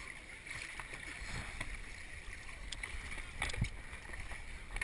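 Handling noise from a GoPro camera as it is moved about, with a few sharp knocks about three and a half seconds in, over a steady hiss of wind and water.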